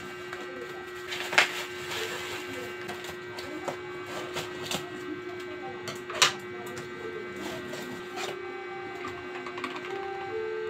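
A cardboard parcel being unpacked by hand: plastic wrapping crinkling and cardboard flaps and tape rustling, with many small clicks. Two sharp knocks stand out, about a second and a half in and again near six seconds, over a steady low hum.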